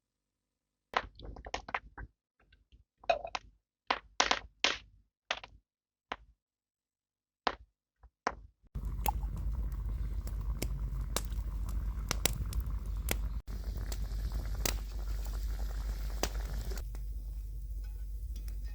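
Scattered knocks, taps and scrapes of hands handling objects, some in quick clusters. From about nine seconds in, a steady background hiss sits under a few more sharp taps.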